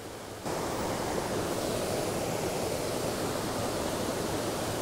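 Rushing water of a small mountain trout stream, a steady hiss. It gets suddenly louder about half a second in and holds level after that.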